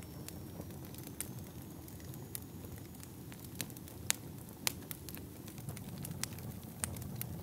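Fire crackling: a steady low rumble broken by scattered sharp pops and snaps at irregular moments.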